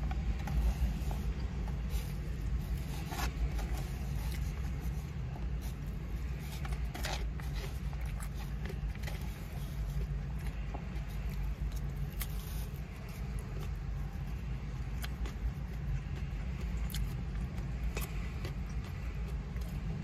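A plastic fork scraping and tapping in a foam takeout container now and then, with eating sounds, over a steady low rumble inside a car.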